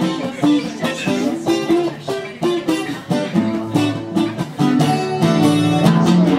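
Guitar playing an instrumental passage of strummed chords and picked notes, with no singing.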